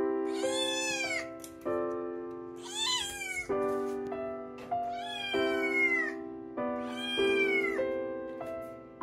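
Scottish Fold Munchkin kitten meowing four times, each call rising and then falling in pitch, about two seconds apart, over steady background music.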